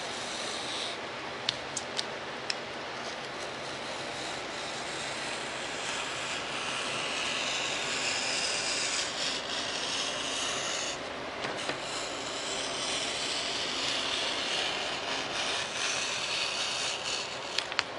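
Hobby knife blade scoring foam board, cutting only about halfway through: a continuous scratchy rubbing of the blade, with a few short clicks about two seconds in and brief breaks between strokes.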